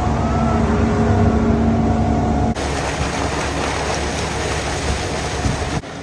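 Concrete mixer truck's engine running with a steady hum while water rushes into the mixer drum. About two and a half seconds in the sound changes abruptly to a more even rush of water pouring from an overhead fill pipe into the hopper.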